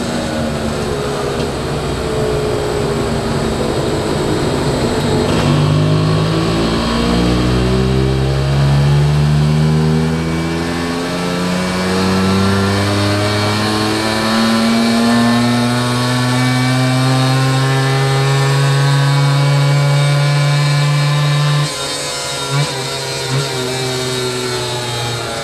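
Yamaha FS1 moped's 50cc rotary-valve two-stroke single, fitted with a 12.8 hp cylinder kit, on a full-throttle dyno power run. Its revs sag for the first few seconds, then climb steadily from about six seconds in and hold near the top. The note cuts off suddenly near the end as the throttle is shut, leaving the engine running much more slowly.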